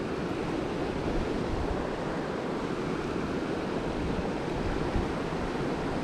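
Small mountain creek running steadily over rocks in a shallow riffle, an even rushing. A soft bump comes about five seconds in.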